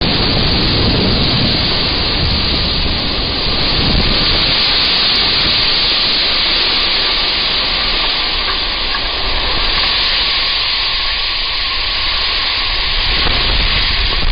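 Wildfire burning: a loud, steady rushing hiss with a low rumble that swells and fades.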